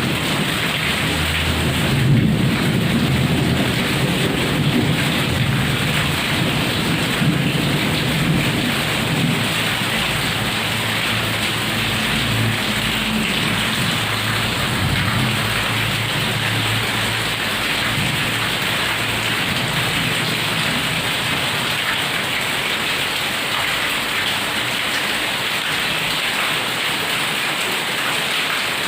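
Heavy rain pouring steadily, with a low thunder rumble that is strong through the first half and fades after about fifteen seconds.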